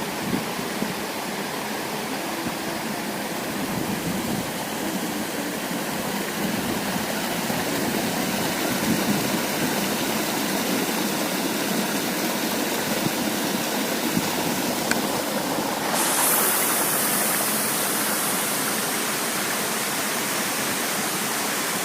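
Waterfall rushing steadily. About three-quarters of the way through, the rush turns abruptly brighter and hissier.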